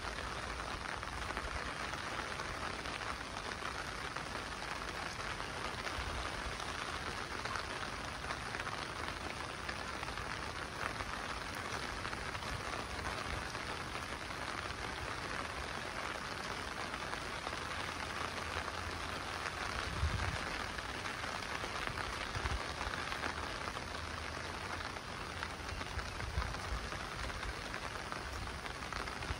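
Steady monsoon rain falling, an even hiss of drops, with a few short low thumps in the second half.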